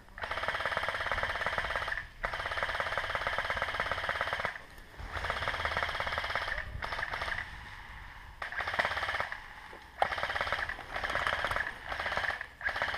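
Airsoft light machine guns firing long full-auto bursts, a rapid rattle that stops and starts about six times, each burst lasting one to two seconds.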